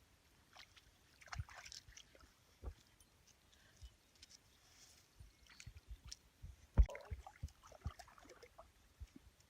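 Dog lapping and sloshing lake water at the shoreline: scattered small splashes and laps, with a louder knock about seven seconds in.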